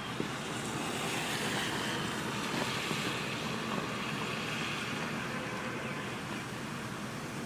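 A steady rushing noise that swells about a second in and then eases slowly.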